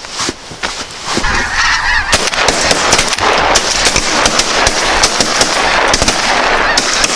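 A huge flock of snow geese calling overhead, a dense honking din that swells about a second in and holds, with shotgun fire cracking through it.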